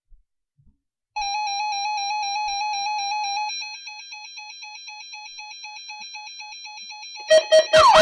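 A weather radio receiver's electronic alert tone. A buzzy, warbling beep starts about a second in, drops in level after a couple of seconds and carries on as quick pulses. Near the end come sharp clicks and a louder siren-like tone that rises and falls.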